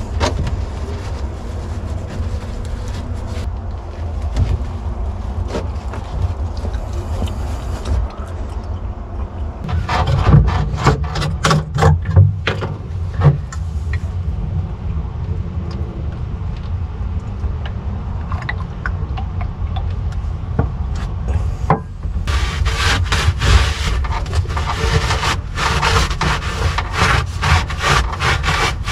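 A cloth rag rubbing and scrubbing a wooden transom panel in quick repeated strokes, coming in bouts and most steadily near the end, over a steady low rumble of wind on the microphone.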